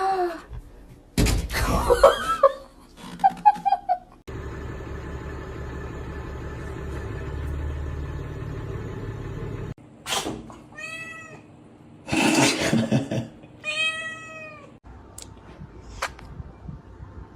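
Domestic cats meowing several times, drawn-out calls that rise and fall in pitch. A steady background noise with no calls fills the middle of the stretch.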